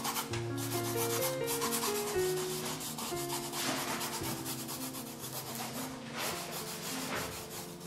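Charcoal rubbed and scrubbed across a canvas in quick back-and-forth strokes, several a second, a dry hissing rasp with each stroke.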